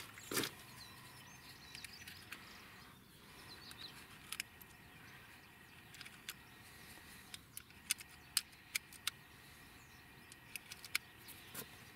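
Faint, sharp small clicks, about a dozen at irregular intervals and more of them in the second half, as .22 rimfire subsonic cartridges are pressed one by one into a CZ rifle's detachable magazine.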